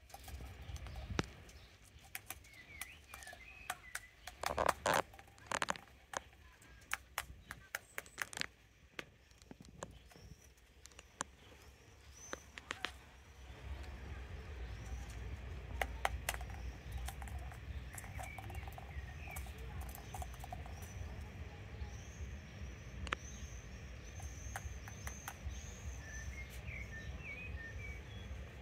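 A crow pecking and tapping at a plastic ping-pong ball on cobblestones: a run of sharp clicks, thickest in the first dozen seconds and sparser after. Small birds chirp now and then in the background, and a low rumble sets in about halfway through.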